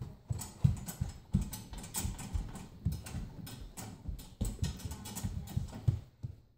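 Baby safety gate rattling and knocking as a toddler holds and shakes it, an irregular run of clattering knocks with dull low thumps.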